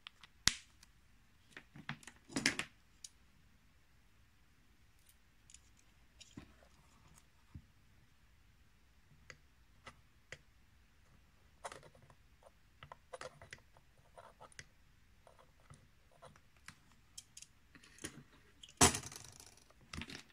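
Scattered clicks and knocks as the Sherline lathe's motor control box and its speed-control knob are handled, with a louder clatter near the end.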